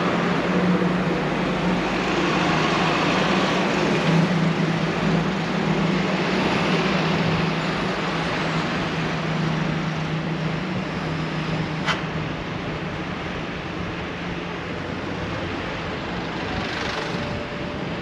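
Street traffic heard from a moving bicycle: a steady vehicle engine drone over road noise, fading slowly in the second half, with a single sharp click about twelve seconds in.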